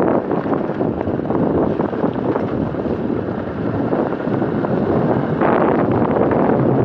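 Wind rushing over the microphone of a moving motorcycle, with the motorcycle running underneath; the rush gets louder about five seconds in.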